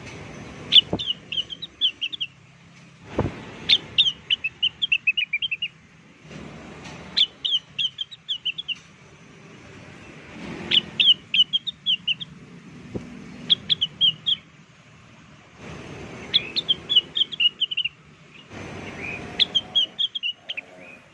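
Leafbird lure call: a short phrase of quick, sharp chirps repeated about every three seconds, seven times in a row. It is a trapping lure recording played to draw wild leafbirds into answering.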